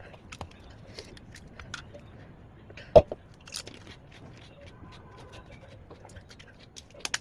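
Golgappa (pani puri) being bitten and chewed: scattered crisp crunches and crackles of the fried puri shells, with one loud sharp crack about three seconds in.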